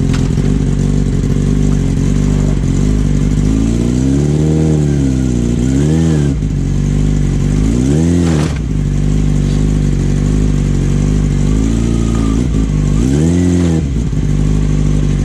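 2005 Yamaha R6's inline-four engine idling and revved in about five short throttle blips, each rising and falling in pitch.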